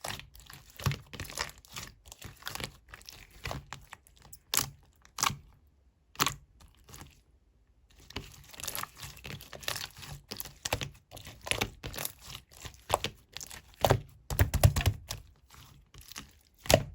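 Clear slime being squished and poked by hand: a run of irregular sticky clicks and small pops, with a short lull a little past the middle and a thicker cluster of clicks near the end.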